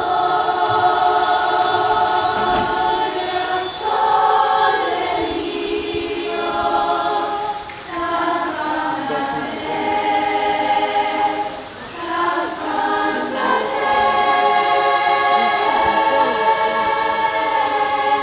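Choir of young women singing a cappella in parts, with sustained chords in phrases separated by short pauses for breath about every four seconds.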